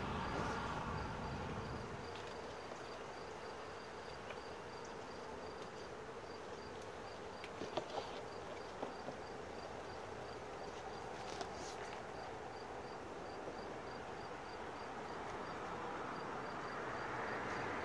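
Honeybees humming from an open wooden hive with its top bars exposed, a steady buzz of many bees. A few light knocks sound about halfway through.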